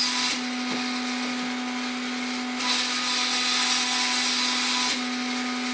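The small platen (Y-axis) stepper motor of a converted Epson LQ2070 dot matrix printer is running at 2000 steps per second, giving a steady whining hum. It breaks off briefly three times as it reverses direction. At this speed the motor sounds unhappy: it is not vibrating, just making a noise.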